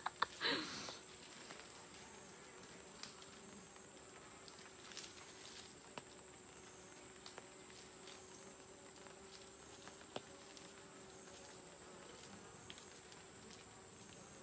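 Honeybees buzzing faintly in a steady low drone: guard bees defending their hive. A brief louder noise comes about half a second in.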